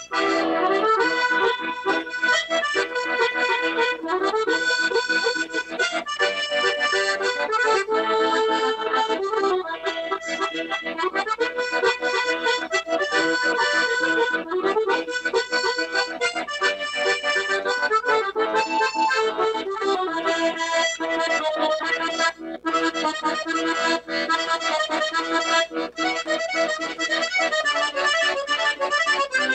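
Accordion playing an instrumental tune: quick stepping runs of notes over held chords, with two very brief breaks in the second half.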